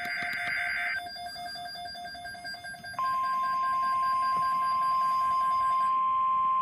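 NOAA Weather Radio alert sounding for a tornado watch. A weather radio receiver beeps in a rapid pulsing pattern, while a short raspy data burst ends about a second in. About three seconds in, the steady single-pitch weather radio warning alarm tone starts and holds, louder than the beeping, which stops near the end.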